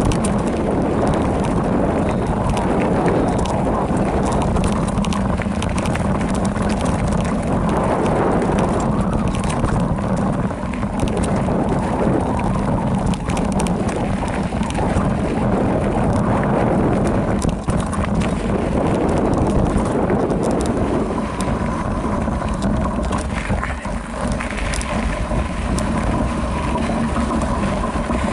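Wind buffeting the microphone over the running noise of a Specialized Rockhopper Comp mountain bike descending a rough dirt trail: tyres rolling on dirt and rock, with a constant rattle of small knocks from the bike.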